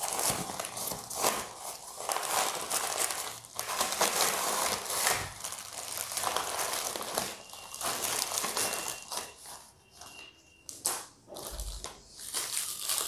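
Irregular rustling and crinkling of a nylon carry bag and the clear plastic wrap around a tripod as it is pulled out and handled.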